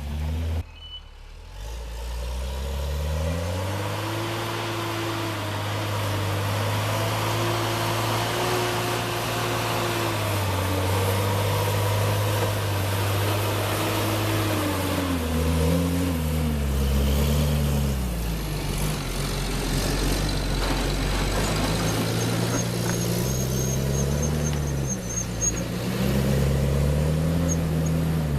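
A heavy vehicle's engine running and revving, its pitch rising and falling slowly over several seconds.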